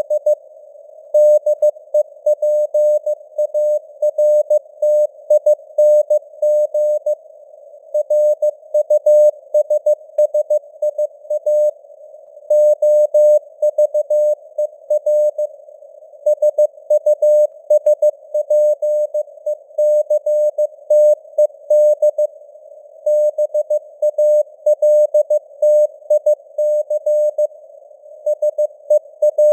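Morse code (CW) tone near 600 Hz, keyed at 15 words per minute in dots and dashes grouped into letters and words, spelling out news text. It sits over faint simulated radio band noise.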